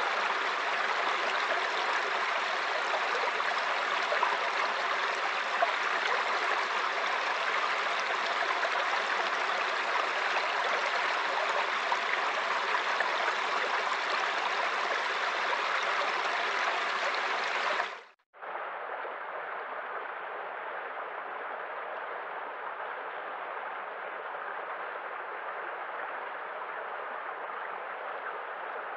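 Steady rushing water, an even hiss-like roar. About eighteen seconds in it breaks off for a moment and comes back quieter and duller.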